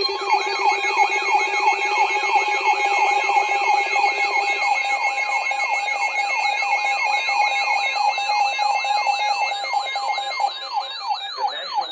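Emergency alert tones sounding on more than one device at once. A siren-like falling whoop repeats about three times a second over a steady tone, and a lower steady tone drops out about four and a half seconds in.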